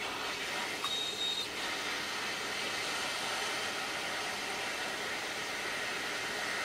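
Hot air rework station blowing a steady hiss of air at low airflow (about 25%). A short faint high tone sounds about a second in.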